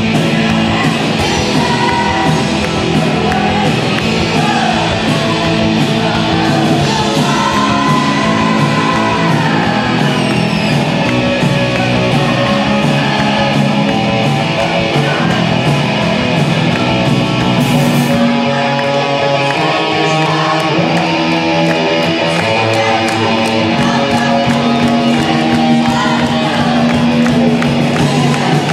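Live rock band playing: electric guitar and drums, with a crowd of voices singing together into the microphones.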